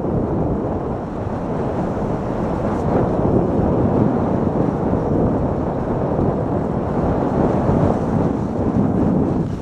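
Wind rushing over the microphone and the sport luge's runners scraping and rumbling over packed snow during a descent at about 30 km/h: a steady, dense rush with no breaks.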